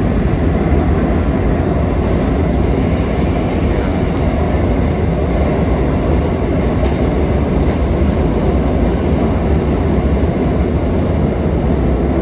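Lisbon Metro train running through a tunnel, heard from inside the carriage: a loud, steady rumble of wheels on rails and traction motors.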